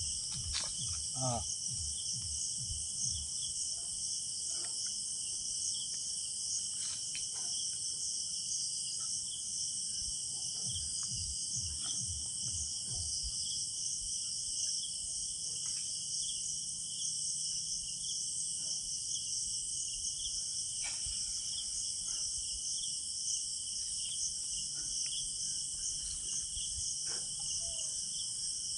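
Steady, high-pitched chorus of night insects, with a few faint scattered clicks and taps.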